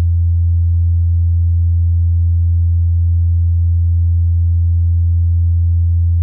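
Steady, loud low electrical hum with a few fainter higher hum tones above it, picked up in the recording.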